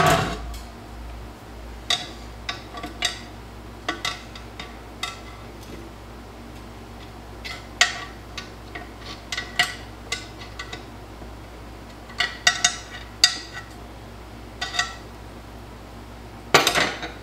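Irregular metal clicks, taps and clinks of a screwdriver and pliers working inside a TH350 transmission case while a stuck internal part is pried at, with a louder clatter near the end.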